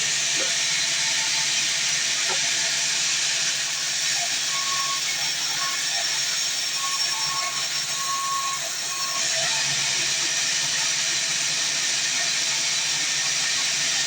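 Sawmill saw cutting through a fresh mahogany log: a loud, steady hiss that eases slightly about nine seconds in.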